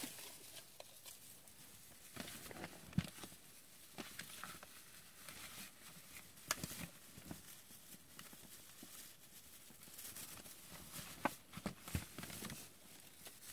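Faint rustling and crinkling of a tinsel garland being wound around a large plastic action figure, with a few sharp clicks scattered through it.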